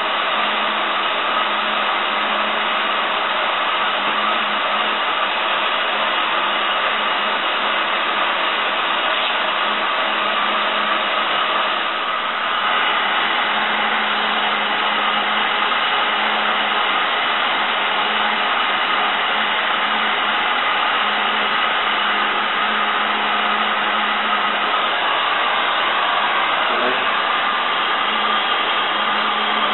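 Handheld electric heat gun running steadily, blowing hot air to soften vinyl wrap film so it can be stretched into the fender area.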